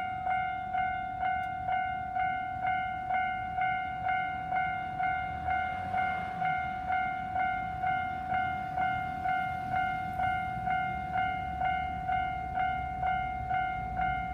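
Japanese railway level crossing's electronic warning bell ringing steadily, about two strikes a second, with a train's low rumble underneath.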